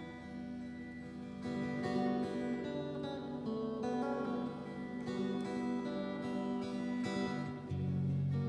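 Electric guitar played through a small amplifier: an instrumental passage of strummed chords left to ring, with a new, lower chord near the end.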